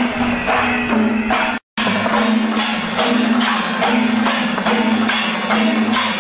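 Percussion music: rhythmic drum and cymbal strokes, about three a second, over a steady held tone. The sound cuts out completely for a moment about one and a half seconds in.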